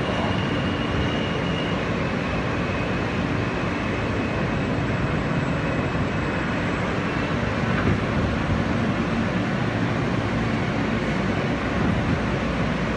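R160 subway train running, a steady rumble of motors and wheels on rails that does not let up.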